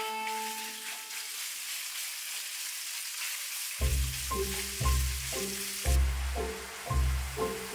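Minced pork and garlic sizzling in hot oil in a wok as a spatula stirs and breaks up the meat. About four seconds in, background music with a steady beat comes in over the sizzling and becomes louder than it.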